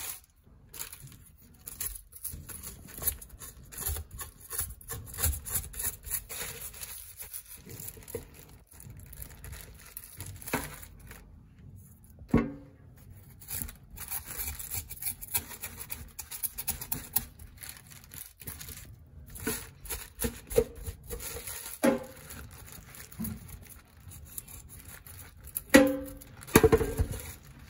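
Knife scraping the scales off a whole angelfish in quick, irregular rasping strokes, with plastic bag crinkling underneath. A few louder knocks come through, the loudest near the end.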